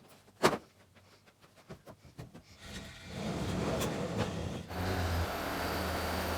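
A sharp click about half a second in, a few lighter clicks, then a machine's motor starting to run and settling into a steady low hum.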